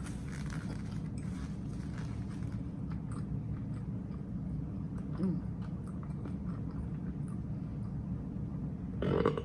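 A person chewing a mouthful of chopped grinder sandwich, soft small chewing clicks over a steady low hum. A short, louder vocal sound comes right at the end.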